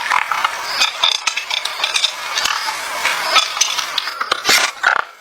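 Scraping and clinking of utensils against cookware, with many short clicks over a steady hiss.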